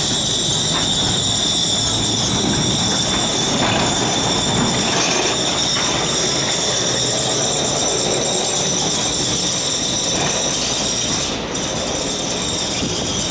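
Glória funicular car running on its rails close by, a steady rumble with a high-pitched whine over it that cuts off abruptly about eleven seconds in.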